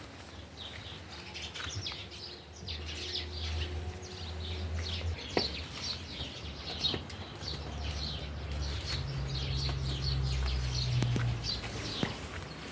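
Small birds chirping in a busy, continuous chatter. Beneath it, a low hum sounds twice, each time for a few seconds, and there are a few short clicks.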